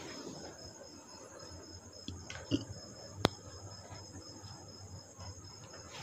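Quiet handling of fabric at a sewing machine, with a few soft rustles and one sharp click about three seconds in, over a faint, steady high-pitched chirring.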